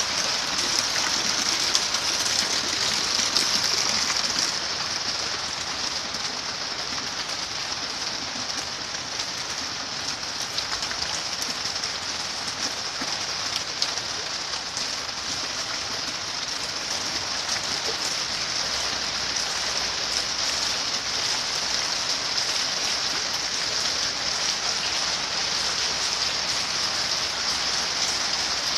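Heavy rain falling onto floodwater: a steady, unbroken hiss, a little louder in the first few seconds.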